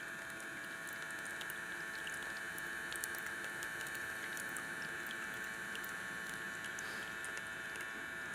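Small tabletop water fountain running: water trickling steadily, with many tiny drips and splashes.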